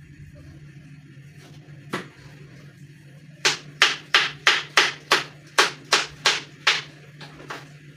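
Knife chopping on a cutting board: one knock about two seconds in, then a run of about ten quick strokes, roughly three a second, trailing off near the end.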